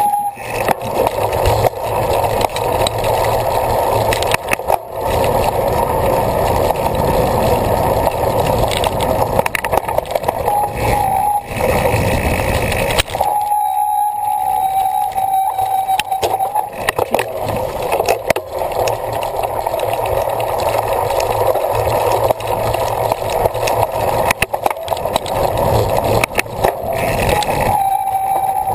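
Cyclocross bike ridden hard over rough ground: a steady rush of wind noise with constant rattling and knocking from the bike, and a steady whining tone that comes and goes a few times.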